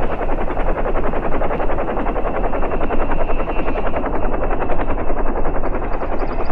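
Helicopter rotor chopping with a rapid, even beat.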